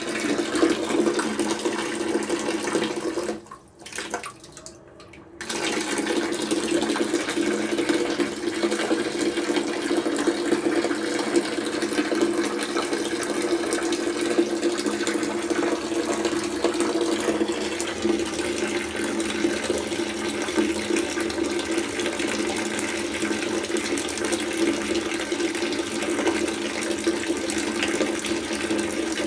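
Water from a tap pouring steadily into a bucket. The flow drops away for about two seconds about three and a half seconds in, then runs on.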